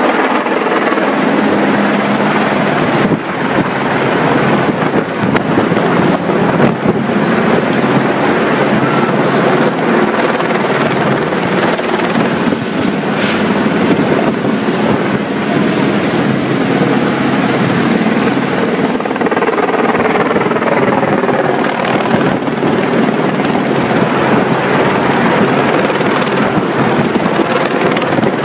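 Rescue helicopter hovering close by, its rotor and engine running steadily with heavy wind noise on the microphone.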